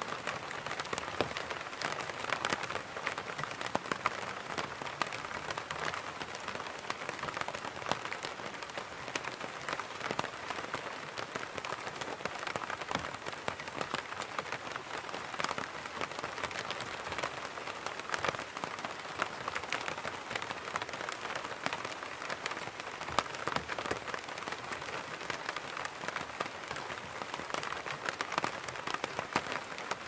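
Rain falling on an open fabric umbrella canopy: a dense, steady patter of many small drop impacts.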